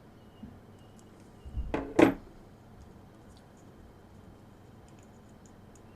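Pliers being handled while crimping a spade connector: two sharp metallic knocks about a second and a half and two seconds in, the second louder, with faint small clicks afterwards.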